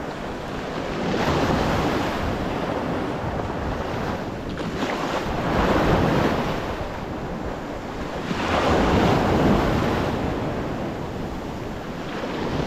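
Choppy sea waves washing and breaking close to the microphone, surging louder about a second in, again around six seconds and around nine seconds, with wind buffeting the microphone.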